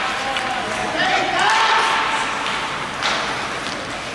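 Shouting voices echoing in an ice hockey rink, over the scrape of skates on the ice and a few clacks of sticks and puck.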